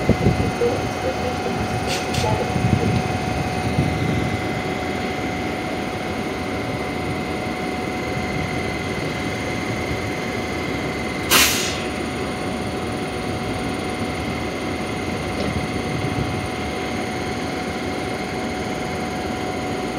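Metra Electric bilevel electric multiple-unit train standing at a platform, its onboard electrical equipment giving a steady hum with high whining tones. A few low rumbles and knocks come in the first seconds as it settles at the stop. A short, sharp hiss comes about eleven seconds in.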